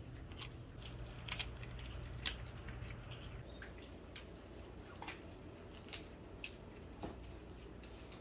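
Bichon frisé dogs chewing and crunching dry treats: irregular sharp crunches and clicks, roughly one a second, over a low steady hum.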